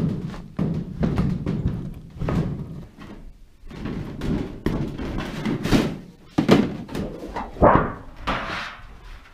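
Thin coated sheet steel being cut with aviation snips along a marked circle: a run of irregular snipping crunches. Later the sheet is lifted and bends, giving louder metallic wobbles, one with a rising warble.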